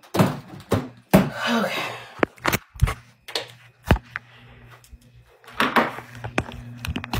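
Handling noise from a phone being picked up and moved: a run of clicks, knocks and rubbing rustles, with a sharp knock about four seconds in.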